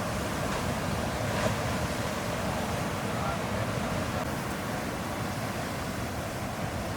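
Steady rush of ocean surf with wind buffeting the microphone, and a brief knock about a second and a half in.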